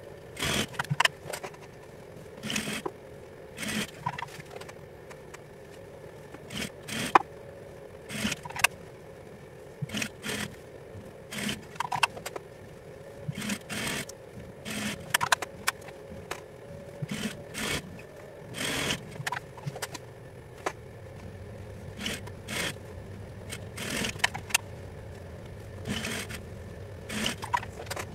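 Juki industrial sewing machine: a steady motor hum with short, irregular bursts of stitching and fabric being pulled and handled, about one a second.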